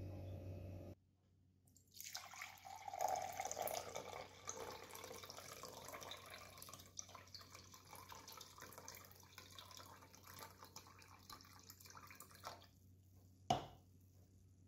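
Fruit juice being poured into a glass measuring jug: splashing and trickling that starts about two seconds in, is strongest for the first couple of seconds, then trails off. A single sharp click comes near the end.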